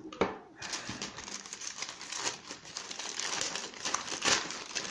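Thin black plastic mailer bag crinkling and rustling steadily as hands pull it open.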